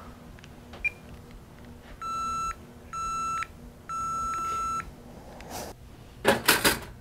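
Telephone handset giving three identical electronic beeps about a second apart, after two short key-press chirps: the line is dead, with no dial tone. A few short clatters of handling noise come near the end.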